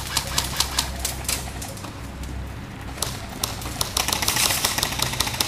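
Airsoft guns firing: scattered sharp clacks at first, then a rapid automatic burst of clicking from about four seconds in.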